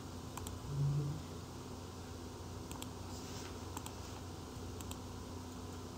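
Faint computer mouse clicks, some in quick pairs like double-clicks, over a steady low hum.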